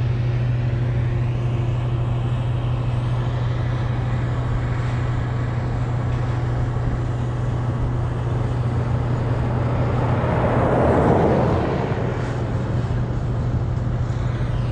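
Steady low vehicle engine hum with road noise, and a vehicle passing close that swells and fades about ten to twelve seconds in.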